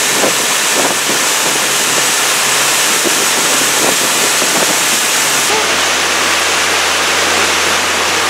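Boat under way: a loud, steady rush of wind and water over a motor's low hum. The sound changes abruptly about five and a half seconds in.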